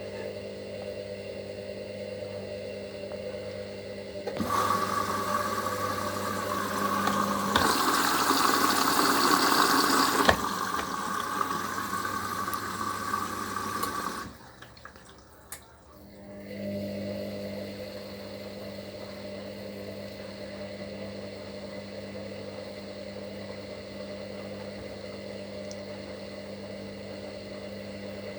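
Hoover HLW585DC washer dryer filling on its rapid cycle: a steady motor hum, with water rushing in loudly for about ten seconds through the inlet. The water stops suddenly. After a brief lull the hum resumes as the drum turns again.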